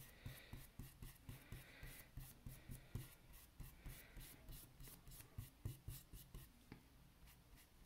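A wet paintbrush scrubbing paint across a small stretched canvas: faint, quick back-and-forth brush strokes, about three or four a second, easing off near the end.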